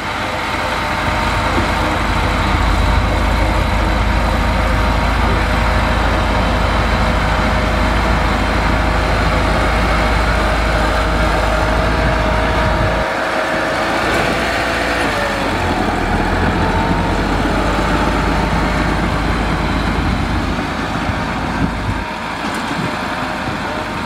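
Heavy diesel engines of a stuck dump truck and a crawler bulldozer running in mud, a steady deep rumble with an engine whine above it. The whine's pitch dips and recovers around the middle, and the deep rumble fades briefly twice.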